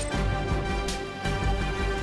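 Background music: a dramatic soundtrack with a heavy low end, steady tones and a regular beat.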